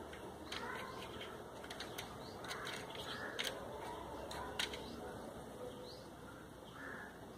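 Faint clicks and taps of hands handling a mini rotary tool and its small metal bits while a bit is fitted into the collet; a few sharper clicks stand out, the loudest near the middle.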